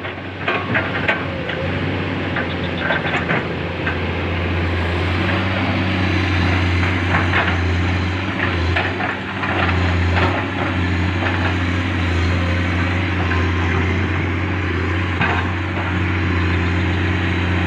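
Hydraulic excavator's diesel engine running steadily, working harder from about four seconds in, with a few sharp knocks in the first few seconds.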